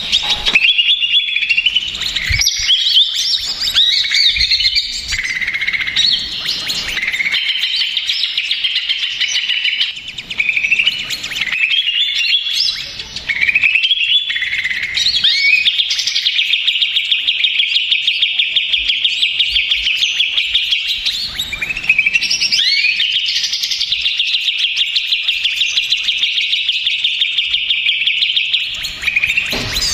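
Cucak ijo (a leafbird) singing loudly, a busy run of chirps and varied phrases followed by two long rapid trills, each held for about six seconds, one about halfway through and one near the end. It is the noisy, agitated cucak ijo song played as a pancingan to provoke other cucak ijo into singing.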